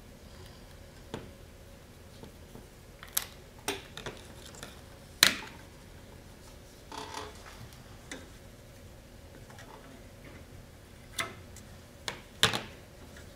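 Scattered sharp clicks and knocks of small hand tools, scissors and wooden sticks, being handled and set down on a workbench. There are about a dozen separate taps, the loudest about five seconds in and two close together near the end.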